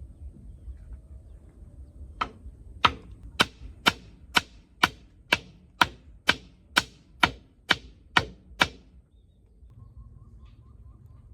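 Hammer blows, about fourteen sharp strikes at a steady pace of roughly two a second, starting about two seconds in and stopping near the end.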